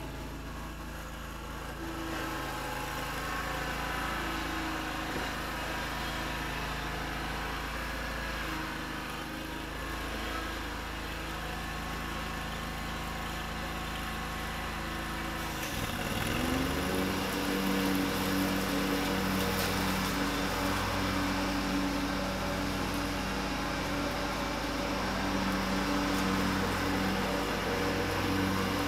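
Riding lawn mower engine running steadily while mowing. About halfway through its pitch dips sharply and recovers, and after that it runs louder with a pulsing low note.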